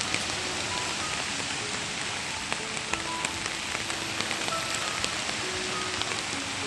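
Heavy rain falling steadily, with scattered sharper drop hits. A soft melody of held notes plays underneath.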